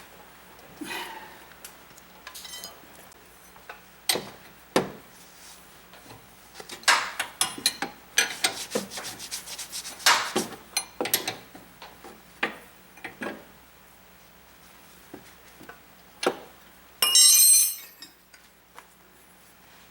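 Hand tools working on an SUV's front suspension while a new upper control arm is fitted: scattered metal clinks, knocks and scrapes, a quick run of clicks about eight seconds in, and a loud rattling clatter near the end.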